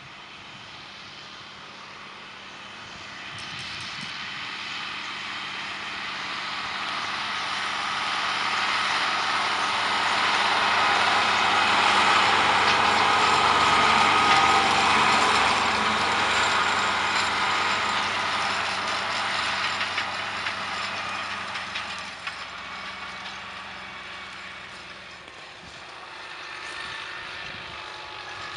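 Tractor pulling a BMR-12 rotary hoe harrow past: engine noise mixed with the clatter of the implement, growing louder to a peak about halfway through, then fading.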